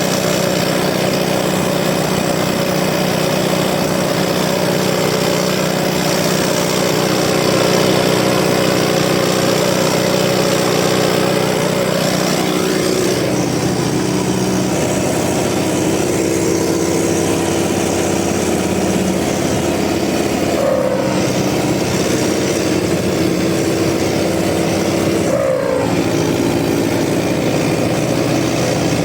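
Car engine running through a 3-inch exhaust with a steady rumble, its pitch wavering briefly a few times as the throttle is touched.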